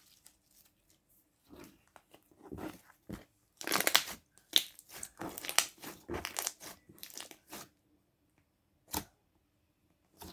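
Homemade slime being pressed and squished, giving a run of sharp pops and crackles as trapped air bubbles burst, with one last pop near the end.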